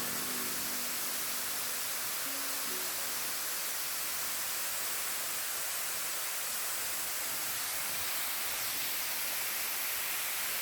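Steady rushing hiss of falling water from a waterfall. A few notes of background music linger over it in the first three seconds, then fade out.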